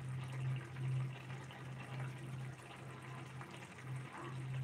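Thick egg curry gravy simmering in a pan, with bubbles popping and a fine, crackly bubbling throughout. Underneath is a low hum that swells and fades unevenly.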